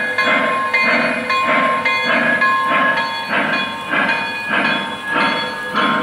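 Lionel O-gauge Pennsylvania CC2 0-8-8-0 model steam locomotive's onboard sound system playing steady, even steam chuffs, about three every two seconds, with a hiss of steam.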